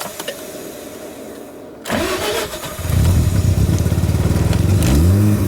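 Mazda RX-7's twin-rotor rotary engine cranking and catching about two seconds in, then running rough and loud, with the revs rising near the end. It is a hard start.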